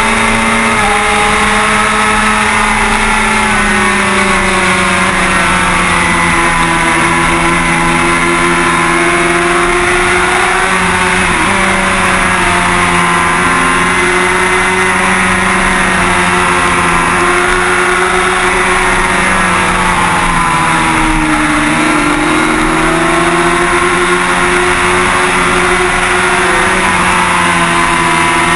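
Kawasaki ZX-6R 636 inline-four engine running hard at high revs, heard from a camera on the bike under a steady rush of wind. The revs hold fairly level but dip briefly about 11 seconds in and again around 21 seconds in before picking back up.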